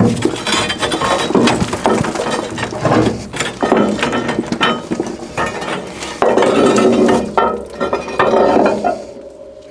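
Metal parts clinking, clattering and scraping as they are worked loose and handled underneath a steam traction engine's firebox, with repeated irregular strikes.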